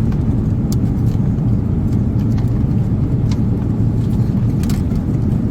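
Steady low rumble of an Airbus A350-900's cabin noise in flight, with a few faint clicks.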